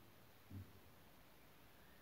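Near silence: room tone, with one faint, short low thump about half a second in.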